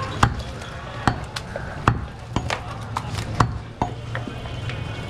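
Butcher's cleaver chopping goat meat on a wooden stump chopping block: a series of sharp chops at an irregular pace, a little under two a second.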